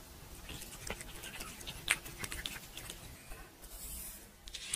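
A cat licking close to the microphone: faint, scattered small clicks and rubbing, the sharpest click about two seconds in.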